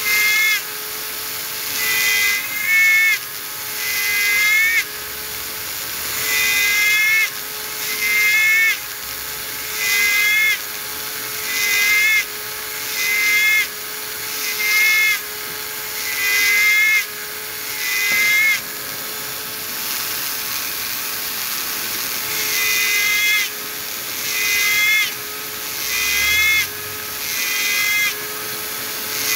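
Small handheld electric mini drill running with a steady whine while its thin bit cuts diagonal tread grooves into a model tyre. Each cut gives a short rising squeal, repeating about every one to two seconds, with a few seconds' pause about two-thirds of the way through.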